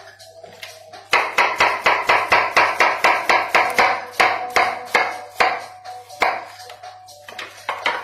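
Chef's knife chopping through a raw potato into thin rounds on a plastic cutting board. It is a quick, steady run of chops at about four a second, starting about a second in and growing sparser near the end.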